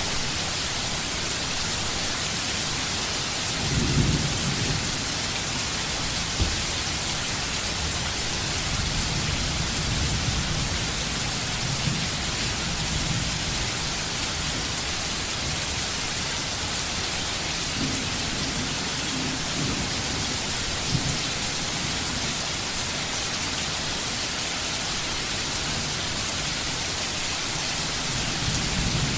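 Steady rain falling, a dense even hiss. Brief low rumbles swell up about four seconds in and a few times later.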